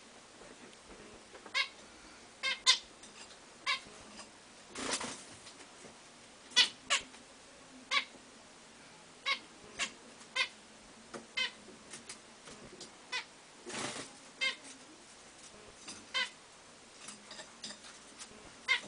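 Zebra finches giving short nasal calls, singly or in quick pairs, about one a second, with two brief rustles among them.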